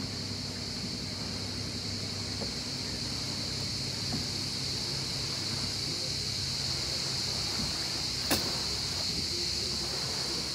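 A small boat's outboard motor running slowly with a steady low hum, under a steady high-pitched buzz. A single sharp click comes about eight seconds in.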